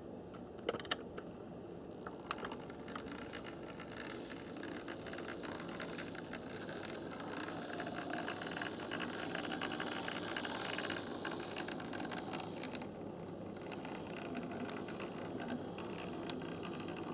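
Kawai brass HO-scale New York Central 4-6-2 Pacific model steam locomotive running on its track: the motor and gears whir, with a fast, dense clicking and rattling from the running gear and wheels. A few sharp clicks come about a second in.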